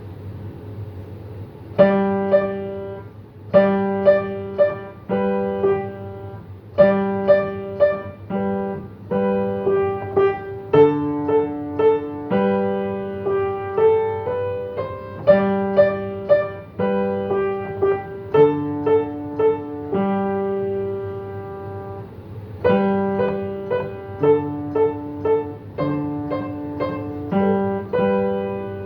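Piano playing a slow piece in short phrases of struck notes and chords, starting about two seconds in, over a faint steady low hum.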